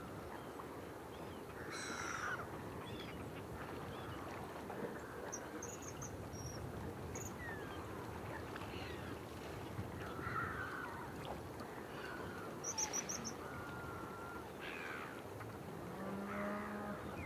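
Rural outdoor ambience: scattered bird calls and short high chirps over a steady background hiss, with a lower pitched call of about a second near the end.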